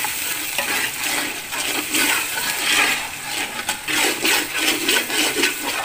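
Metal ladle stirring wet masala frying in oil in a steel pot: a steady sizzle and bubbling with repeated scrapes and clicks of the ladle against the pot.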